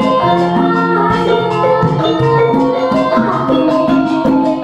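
Javanese gamelan ensemble playing, with bronze kettle gongs and metallophone notes ringing over a steady beat. A woman sings along through a microphone.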